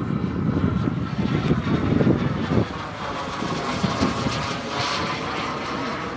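Miniature turbine engine of a radio-controlled model jet flying past: a steady jet hiss and whine whose tone slowly sweeps as the plane moves across the sky, a little louder in the first couple of seconds.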